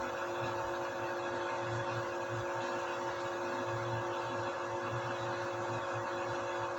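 Washing machine running, a steady motor whine with a low hum that swells and fades in a regular rhythm, a little faster than once a second.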